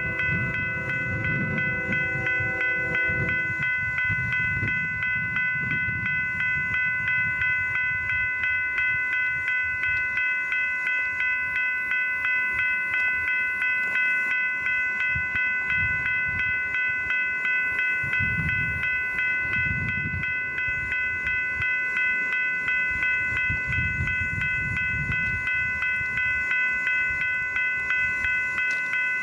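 Grade-crossing warning bell ringing steadily as a BNSF train passes, with the low rumble of the train underneath. The locomotive's horn chord cuts off about three and a half seconds in.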